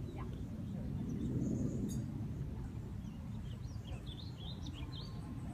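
Small birds chirping in short, high notes, mostly in the second half, over a steady low rumble that swells briefly about a second and a half in.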